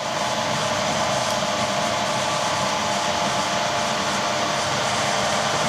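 Machine tool running steadily as a drill cuts into a cast pot-metal car door handle, now through its cast-in steel core; an even whirring with faint steady tones and no change in pace.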